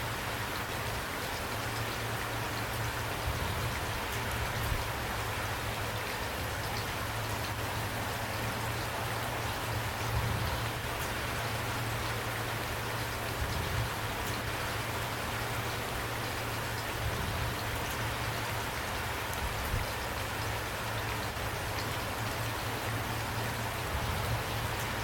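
Steady rain falling, an even hiss of drops with many small ticks and a low rumble underneath.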